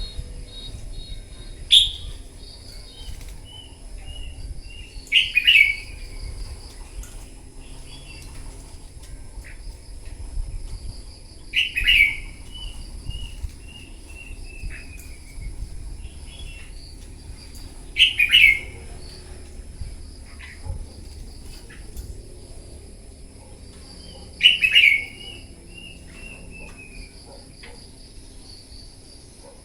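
Red-whiskered bulbul singing competitive song: five loud phrases about six seconds apart, each a sharp burst followed by a run of short falling notes.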